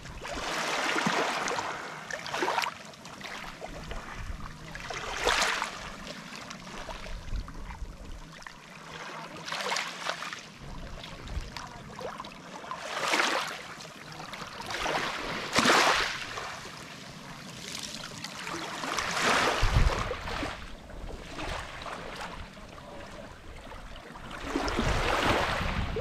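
Small sea waves lapping onto a pebble beach, each wash rising to a short hiss and falling back, every few seconds.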